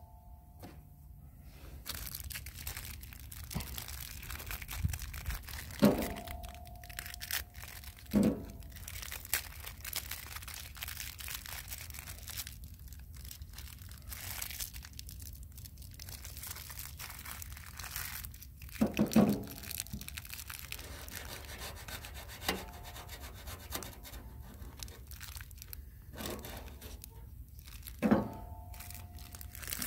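Handling and unwrapping the pieces of a fire starter kit: packaging crinkling and tearing, rubbing, and scattered light clicks and knocks, with a few louder short knocks.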